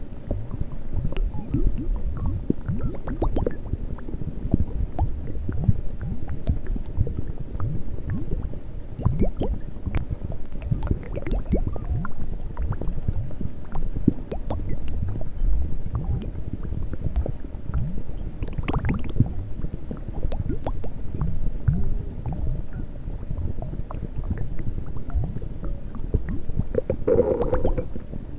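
A person's stomach growling and gurgling: a dense, unbroken run of low rumbles and short pops, with a brief higher-pitched squeal about a second before the end.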